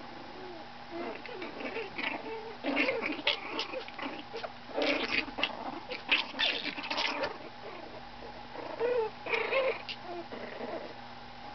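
Young puppies whimpering and squeaking: a string of short, high cries that come thickest in the middle and again briefly near the end.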